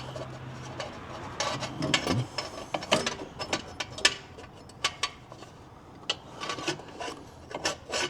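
Irregular clicks, knocks and scrapes of hand tools and parts being handled while working under a car, with a faint low hum in the first couple of seconds.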